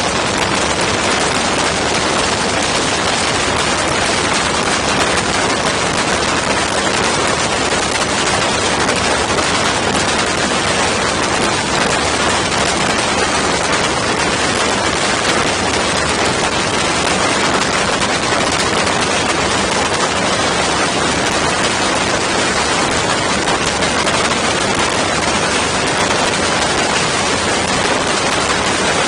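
Steady loud rush of wind noise on the microphone in an ultralight aircraft's open cockpit in flight, mixed with the drone of its running engine and propeller.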